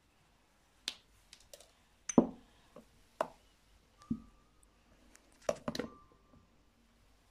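Light, irregular clicks and taps of kitchen utensils and containers against a glass mixing bowl as spices are added, about ten in all, the loudest a little past two seconds in, a few with a short ring.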